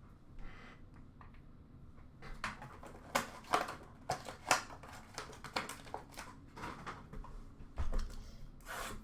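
Trading cards and their pack being handled: a run of quick, irregular rubbing and sliding strokes of card stock and wrapper, starting about two seconds in.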